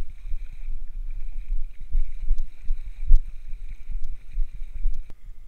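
Wind buffeting the microphone in low, irregular gusts, with a faint steady high-pitched hiss and a few light clicks.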